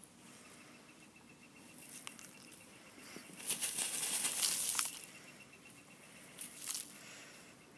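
A hen dust bathing, shaking and flapping her fluffed feathers in dry dirt and straw, with a loud rustling flurry about halfway through and a shorter one near the end.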